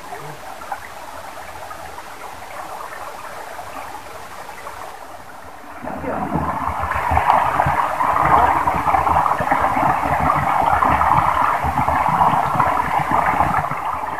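Shallow stream water sloshing and splashing as people wade and grope in it by hand, growing louder and rougher about six seconds in.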